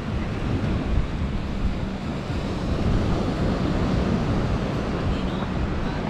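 Wind buffeting the microphone over the wash of small surf waves breaking on a sandy beach, with a steady low hum from about a second in.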